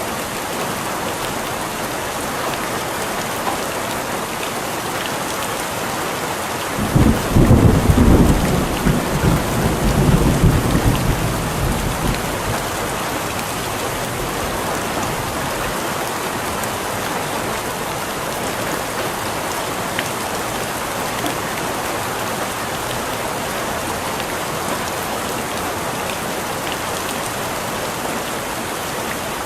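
Steady rain falling, with a single roll of thunder that breaks in sharply about a quarter of the way through and rumbles away over several seconds.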